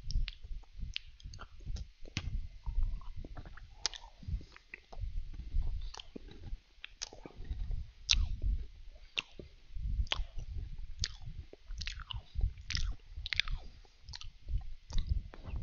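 A person biting and chewing Danish butter cookies: irregular crisp crunches with soft mouth sounds between them.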